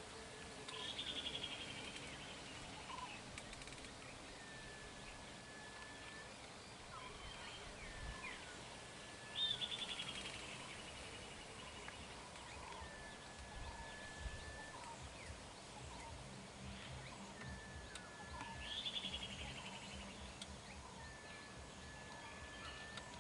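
Wild birds calling over steady outdoor background noise: a short, even whistle repeated every few seconds, and three times a louder, longer call that falls in pitch with a fast trill.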